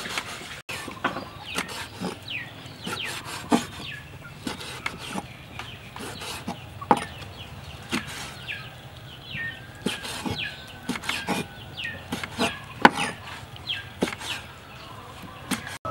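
A steel cleaver chopping cooked pig intestine on a wooden chopping board: repeated sharp knocks of the blade hitting the board, about two a second and unevenly spaced. Birds call in the background, most likely chickens clucking.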